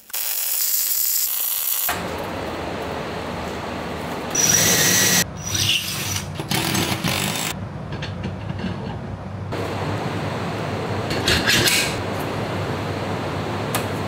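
Shop fabrication noise: a MIG welding arc hisses for about the first two seconds. After that, steady power-tool and machine noise with a low hum runs on, with a few louder bursts in the middle and near the end.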